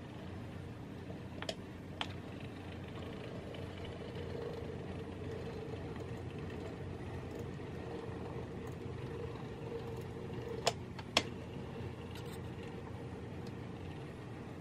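Brass On2-scale model of an SR&RL 2-6-2 steam locomotive running on curved track: the steady whir of its small electric motor and gears with the wheels rolling on the rails. A pair of sharp clicks comes about a second and a half in, and another pair about three-quarters of the way through.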